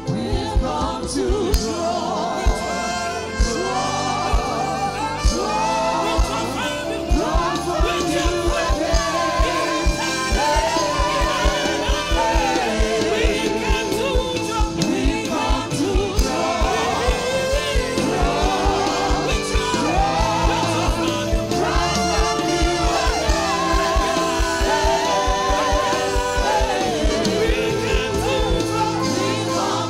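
Live gospel praise singing: several vocalists on microphones over instrumental backing with a steady beat.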